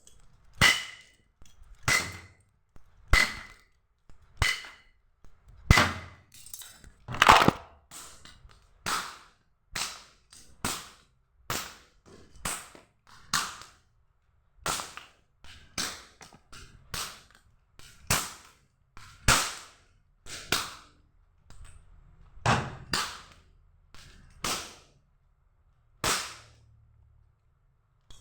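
A belt whipped against a floor, one sharp crack after another at an uneven pace of roughly one to two a second, sometimes two in quick succession.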